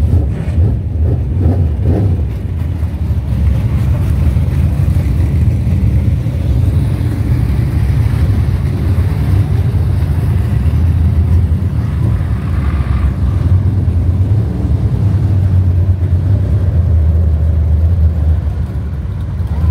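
Engines of a field of dirt-track race cars running as they circle a clay oval, a loud, steady low rumble from the pack.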